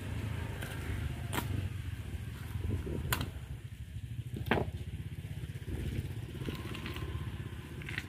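Knife filleting a trevally on a wooden cutting board, with three or four sharp clicks as the blade meets bone and board, over a steady low rumble.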